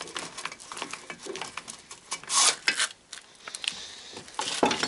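Handling noises from a home-made cylinder-honing rig with the drill stopped: scattered clicks, light metal knocks and rustling as the sandpaper-wrapped rod is refitted in the cylinder. One louder rustle comes a little after two seconds in.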